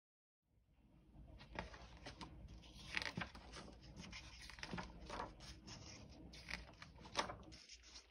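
Pages of a paperback picture book being turned and handled on a wooden table: faint rustling of paper, with a few sharper swishes and taps as the pages flip.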